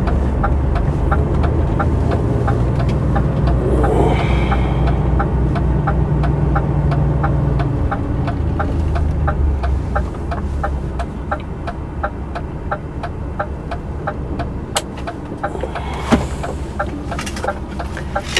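DAF XF truck's diesel engine heard from the cab as a low drone that eases off about ten seconds in, with a steady, even ticking over it.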